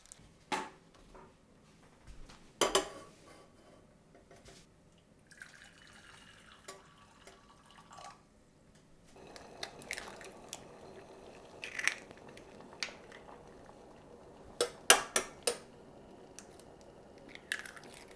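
Cookware and water in a kitchen: a few sharp clinks and knocks of a pot being handled, a stretch of water running or pouring a few seconds in, then a steady faint hiss from about halfway with more clinks.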